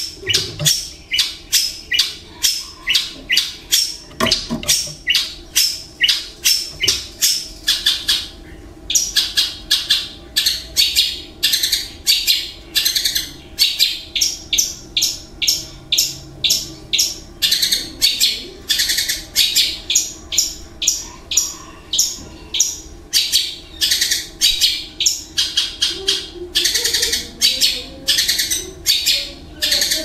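Long-tailed shrike (cendet) singing a rapid, steady series of short, sharp, harsh notes, about two to three a second, with a brief pause about nine seconds in.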